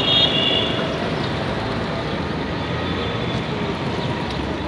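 Steady traffic noise, with a short high-pitched toot right at the start.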